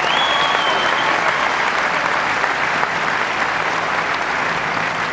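Large crowd applauding steadily. A short high held note rises over the clapping in the first second.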